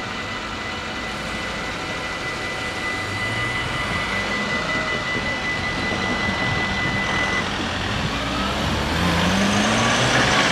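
Dutch automatic level-crossing bells ringing in a steady high tone that stops about seven seconds in, as the barriers finish rising. Near the end a car engine rises in pitch as traffic pulls away across the reopened crossing.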